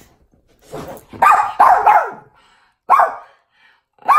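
Small dog barking in play-wrestling: a soft bark just under a second in, two loud barks close together, then a single bark about three seconds in.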